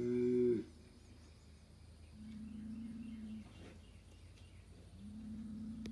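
Young Angus bull bellowing, the call cutting off about half a second in, then two low, steady rumbling calls about a second and a half long, one in the middle and one near the end, from the agitated bull after an electric-fence shock.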